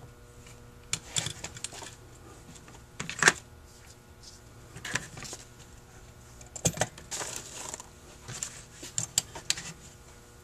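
Small metal carburetor parts and screws clicking and clinking as a Holley 2280 two-barrel carburetor is handled and fitted with its screws during reassembly: a string of scattered clicks, the loudest about three seconds in.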